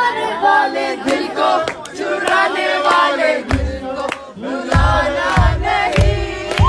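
A woman singing into a microphone with a crowd singing and cheering along. A steady kick drum beat comes in about halfway through, roughly one beat every 0.6 seconds.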